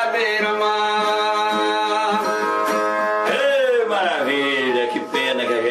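Viola music with a singer holding a long note, which slides down in pitch about three seconds in.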